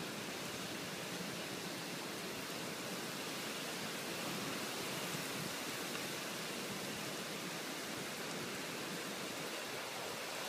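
Heavy rain pouring down in a storm, a steady unbroken hiss.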